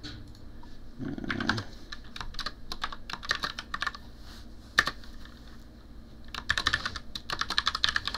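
Typing on a computer keyboard in quick bursts of keystrokes with short pauses between them, and one sharper single keystroke a little before the five-second mark.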